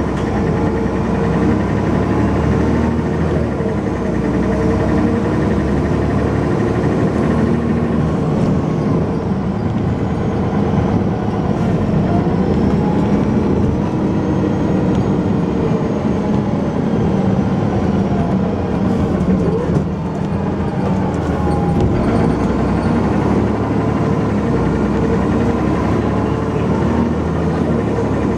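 Dennis Arrow double-decker bus's diesel engine running under load, heard on board, its note rising and falling as the bus drives along, with a brief dip in level about two-thirds of the way through.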